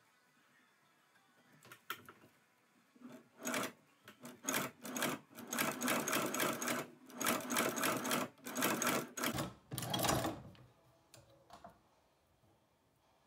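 Hand-crank cobbler's patch sewing machine stitching as its handwheel is turned, the needle clattering in a run of quick strokes. The strokes start about three and a half seconds in, pause briefly a couple of times, and stop just after ten seconds.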